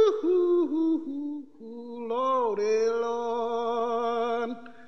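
Wordless singing by theatre actors: a few short falling notes, then a long held note with a slight waver that stops about four and a half seconds in.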